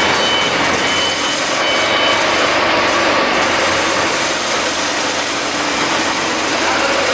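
Cummins QSNT-G3 six-cylinder diesel engine of a 300 kW generator set running steadily at a loud, even pitch. A short high beep repeats several times during the first two seconds.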